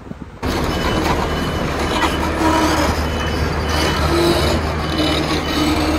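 Street traffic noise that starts abruptly about half a second in: a large vehicle's engine running with a steady low hum, with a short high beep repeating over it.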